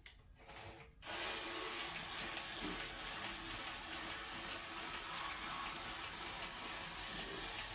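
Electric motor and gear train of a home-built Lego robot running steadily as it drives itself along daisy-chained program plates, the rack pieces on the plates steering it. The running starts about a second in.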